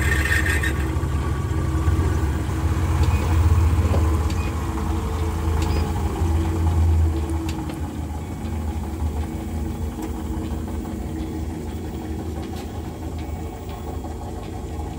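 Homemade belt-driven metal lathe running, its motor and spindle giving a steady low hum. It is louder for about the first seven seconds, then settles a little lower.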